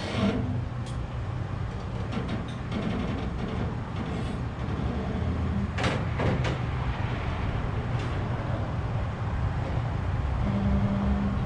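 A steady low machine rumble, like an engine running, with a few short knocks and clanks over it.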